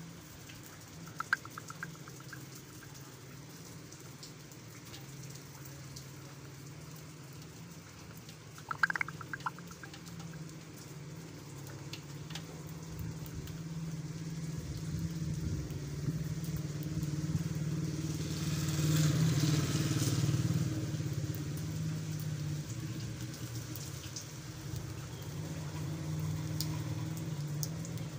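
A vehicle engine's steady low hum that grows louder through the second half. It is loudest about two-thirds of the way in, with a hiss of tyres on the wet road. Two brief high chirps sound near the start and about nine seconds in.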